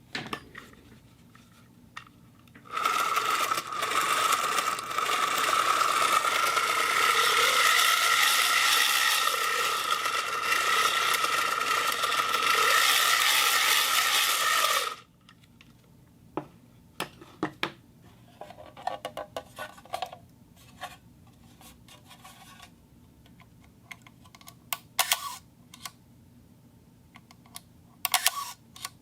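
Metal springs worked for sound effects: a loud continuous scraping with a steady high ring that starts about three seconds in and cuts off suddenly some twelve seconds later, followed by scattered small clicks and rattles of the springs.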